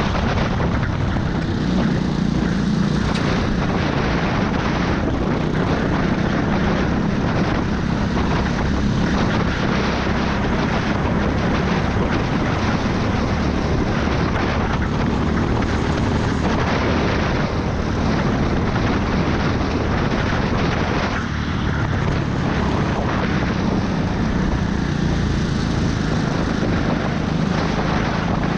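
Go-kart engine running at racing speed, heard on board the kart, with a steady rushing noise over it.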